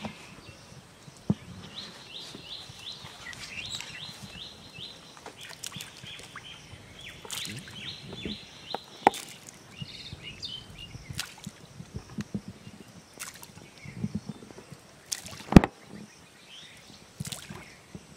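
Pond-side outdoor ambience: a bird calls in quick repeated trills, in two runs, while small splashes and a few sharp clicks come as bait is scattered onto the water, the loudest click a little before the end.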